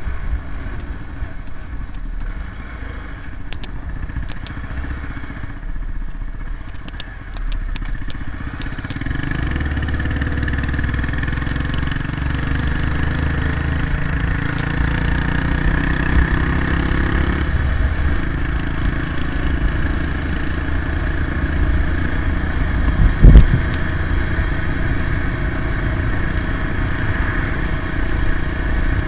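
Honda MSX125 motorcycle's single-cylinder engine running on the road, growing louder about a quarter of the way in as it picks up speed. A single sharp thump comes about two-thirds of the way through.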